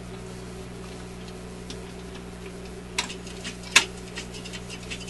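Electrohome 652 suitcase record player running a record at 16 rpm: a steady low hum with faint scattered ticks, and two sharper clicks about three and four seconds in, the second the loudest.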